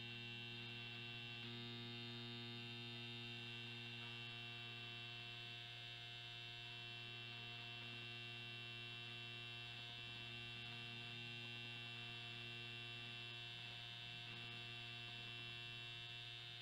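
Steady hum with a bright buzz on top from the device vibrating a plate of soapy water. The vibration keeps the surface rippling in a standing pattern so that water droplets bounce on it instead of merging.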